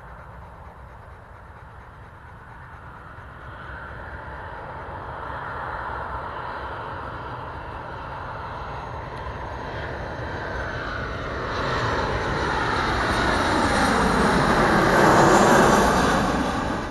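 Twin-jet airliner flying in low and passing overhead, its jet engine noise growing steadily louder, with a falling pitch sweep as it goes over near the end. The sound cuts off suddenly at the end.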